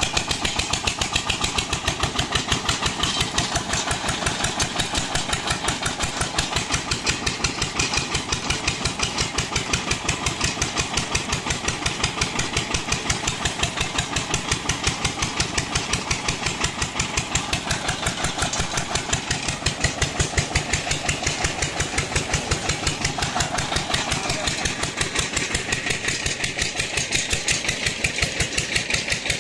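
A single-cylinder diesel tubewell engine running steadily under load, driving the well pump through a flat belt and pulley. It makes a fast, even thudding beat.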